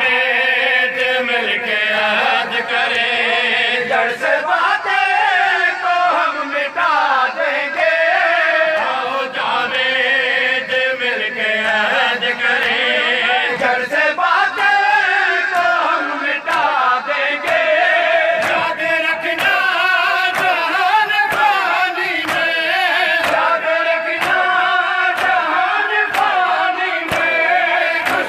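A group of men chanting a Shia mourning lament in unison. Sharp hand slaps on bare chests (matam) keep a steady beat under the chant.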